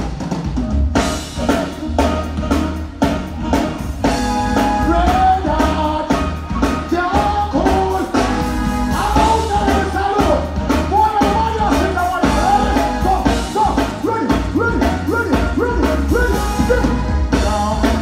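Live reggae and dancehall performance: a male artist singing and deejaying into a hand microphone over a music track with heavy bass and a steady drum beat, which comes in right at the start.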